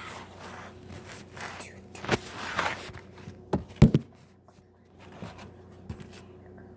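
Knocks, scrapes and rustling of people moving about, with a few sharp thumps about two to four seconds in, the loudest near four seconds, over a faint steady hum.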